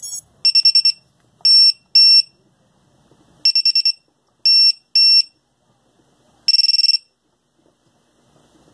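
JHE42B finder buzzer on a 3-inch quad beeping with a loud, high-pitched tone: a quick run of rapid beeps followed by two short single beeps, repeated, ending on a third run of rapid beeps about seven seconds in.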